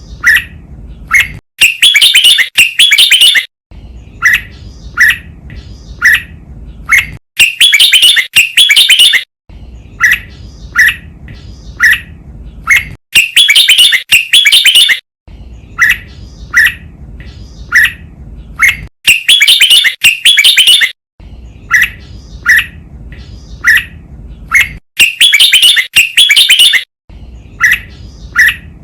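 Red-whiskered bulbul song, a looped training recording: a few short falling chirps, then a loud, rapid warbled phrase of about two seconds, the cycle repeating about every six seconds.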